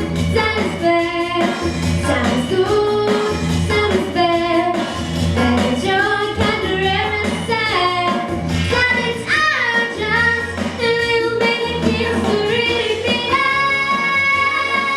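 A young girl singing a song over musical accompaniment with a regular bass pulse, holding a long note near the end.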